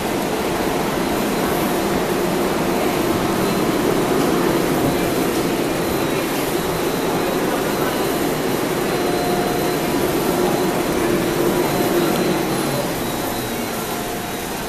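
Steady whirring rush of machinery and moving air on an underground subway platform, from a stopped MARTA railcar and the station's fans. It eases off a little near the end.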